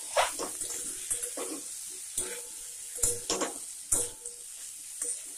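Metal spatula scraping and stirring diced potato, carrot and beetroot in a hot kadai, in a series of irregular scrapes over a steady sizzle of frying oil.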